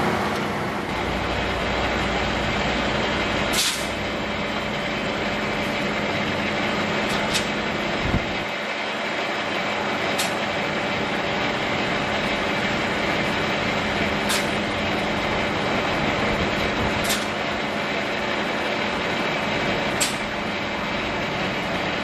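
Metal lathe running steadily while cutting a steel bar, with a light sharp tick every three to four seconds.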